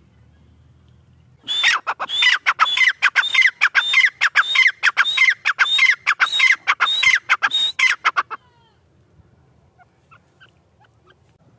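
Grey francolin (teetar) calling: a rapid run of loud, sharp, repeated calls, each sliding down in pitch. It starts about a second and a half in, lasts about seven seconds, then stops, leaving only a few faint chirps.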